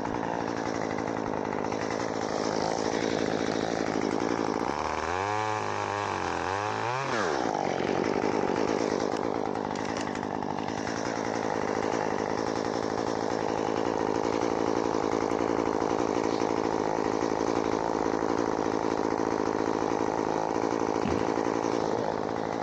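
Two-stroke chainsaw running while cutting branches off a dead loblolly pine. Its pitch rises and falls several times about five to seven seconds in.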